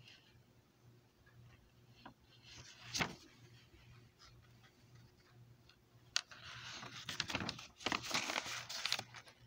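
Paper pages of a hand-drawn book rustling and crinkling as a page is turned, from about six seconds in until near the end. There is a single sharp tap about three seconds in.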